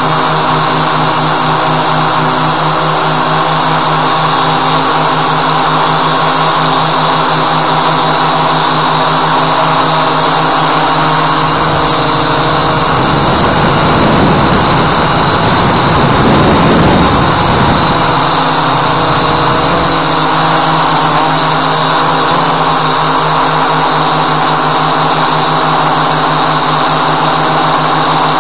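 Walkera Voyager 3 drone's electric motors and propellers running in flight, a steady buzzing drone with a high whine above it. About halfway through, a rushing noise swells for a few seconds and then dies away.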